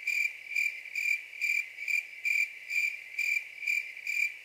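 Cricket chirping in an even rhythm, high and steady in pitch, over otherwise dead silence: the stock crickets sound effect used to mark an awkward silence.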